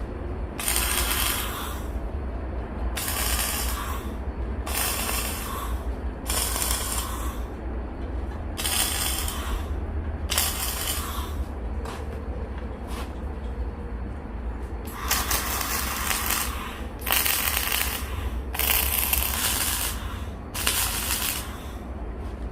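Arc welding on steel, about ten short welds of roughly a second each with brief pauses between them, each one a crackling hiss, over a steady low hum.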